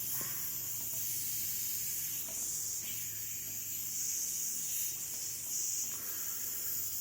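Compressed air hissing steadily out past a second-hand gasket in a Leyland gear shifter under pressure test, swelling slightly a few times: the gasket is leaking, which the owner puts down to its having been over-tightened.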